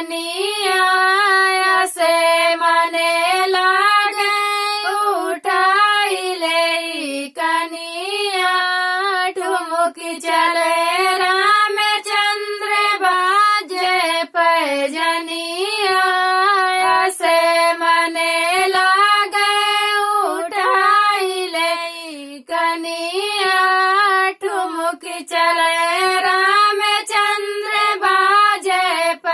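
Women singing a sohar dadra folk song in high, strong voices, one sung line after another with short breaths between phrases.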